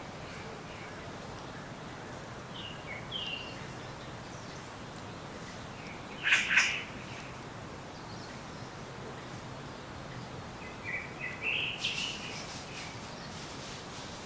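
Wild birds calling over a steady background hiss: a few short chirps about three seconds in, one loud call in the middle, and a run of calls near the end.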